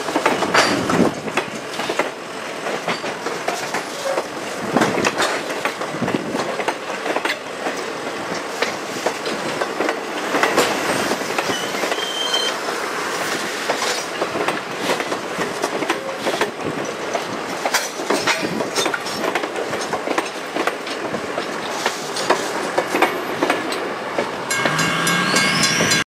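Wooden passenger coaches rolling past close by, their wheels clicking and clattering over the rail joints in an irregular clickety-clack over a steady rumble. A short pitched sound comes in near the end, just before the sound cuts off.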